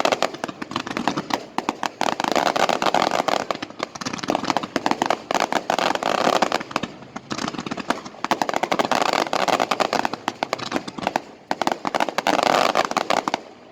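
Fireworks crackling: dense, rapid strings of sharp pops and cracks that swell and die down in waves every two to three seconds.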